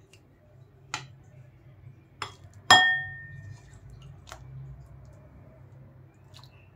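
A glass bowl clinking as curry is served into it with a spatula: a handful of sharp clinks, the loudest about three seconds in, ringing on briefly.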